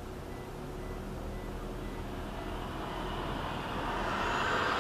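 Steady road and engine noise heard from inside a moving car, with a fire ladder truck growing louder as it passes close alongside near the end.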